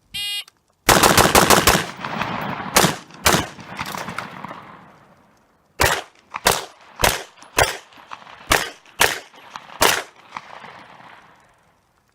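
A shot-timer beep, then an AR-15 rifle fires a fast string of about six shots and two more a moment later. After a pause of about two and a half seconds, a handgun fires seven shots: four in quick succession, then two, then a single last shot, with echo trailing after each string.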